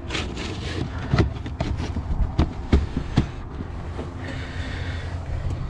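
Plastic vinyl soffit panel being hooked and pushed into its channel: a run of sharp clicks and knocks, then a scraping rustle about four seconds in, over a steady low rumble.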